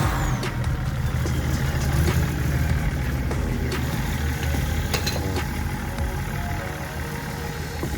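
A car engine idling steadily with a low, even rumble, with a few sharp clicks about five seconds in.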